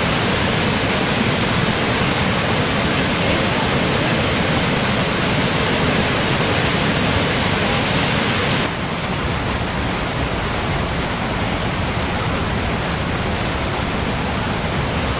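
Waterfall: a steady, loud rush of falling water. A little over halfway through it suddenly drops slightly in level and loses some of its hiss, as at a cut to another shot.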